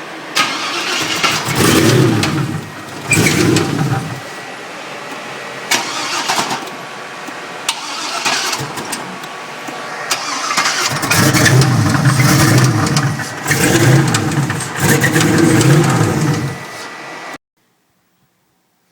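Turbocharged LS V8 running and revved in several loud bursts, with a rod knock: a worn connecting-rod bearing. The sound cuts off abruptly near the end.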